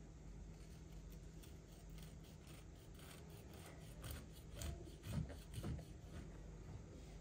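Kitchen knife sawing through a sugar-glazed sponge loaf cake in short back-and-forth strokes, a soft repeated scraping that gets louder a few seconds in, with two dull thumps about five seconds in.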